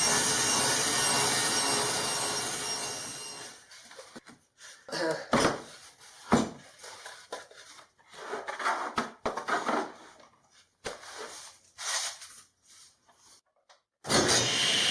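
Wooden workbench legs being sawn to length: a steady sawing noise that fades out over the first few seconds. Scattered knocks and clatter of wood being handled follow, and the sawing starts again suddenly near the end.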